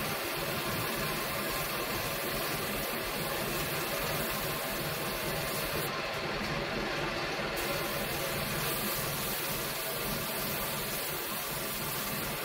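Steady hum of a running machine, even in level throughout, with faint steady tones and no knocks or hammering.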